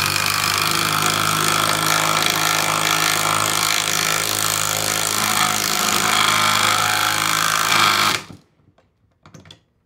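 Cordless impact driver with a socket driving a lag bolt through a wooden bracket into a wooden post, hammering steadily and stopping abruptly about eight seconds in once the bolt is down.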